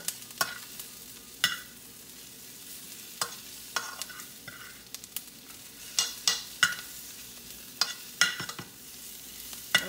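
Sliced onions and green peppers frying in a stainless steel skillet with a faint steady sizzle, while a metal spoon stirs them, scraping and clinking against the pan at irregular moments. The vegetables are soft and browning.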